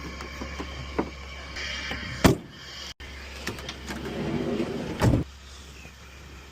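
Car doors shutting: two heavy thuds about two and five seconds in, over a steady low hum and light clicks. A short whirring comes just before the second thud.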